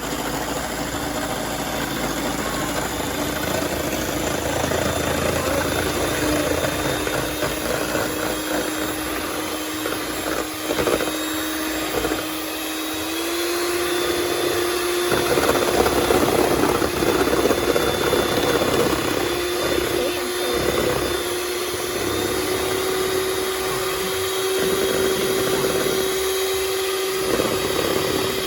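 Electric hand mixer whipping cold heavy cream in a bowl at medium-high speed. The motor hums at a steady pitch that steps up slightly about thirteen seconds in and twice more later, over the churning of the beaters in the cream.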